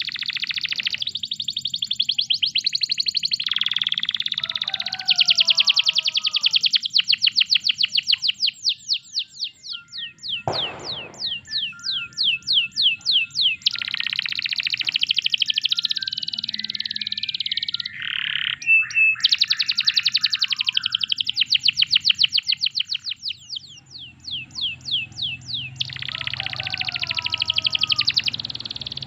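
Domestic canary singing a long, loud song of fast trills: runs of rapidly repeated high notes, many per second, broken by short pauses and lower warbled phrases.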